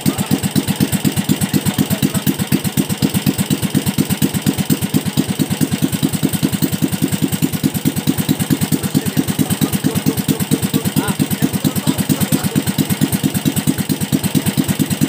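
Single-cylinder OHV small engine with a bare racing-style carburettor and a straight exhaust pipe, idling steadily at about ten firing pulses a second while its carburettor is being adjusted.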